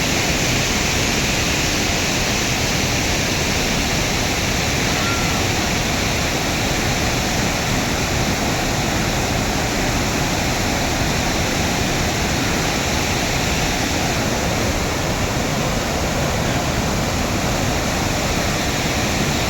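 Floodwater rushing in a steady, unbroken flow.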